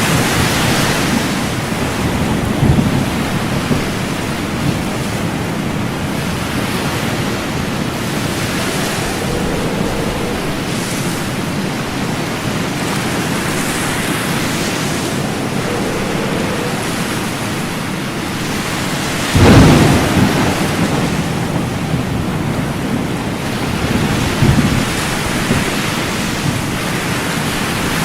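Steady rain with deep rumbles of thunder; the loudest rumble comes about two-thirds of the way through, with smaller ones near the start and near the end.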